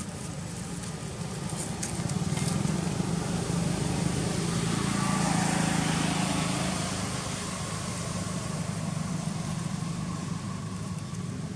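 A motor vehicle going past: a steady low engine hum swells from about two seconds in, peaks near the middle, then fades.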